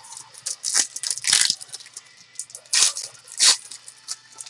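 Trading cards handled by hand, sliding and snapping against one another as a stack is flipped through, in several short crisp rustles.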